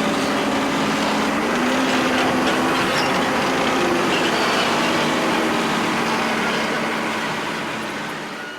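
A vehicle engine running steadily, then fading out over the last couple of seconds.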